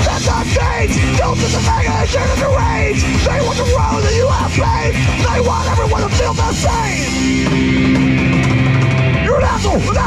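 Live punk rock band playing loud, with electric guitar, bass guitar and drums. The band hangs on one sustained chord for about two seconds near the end.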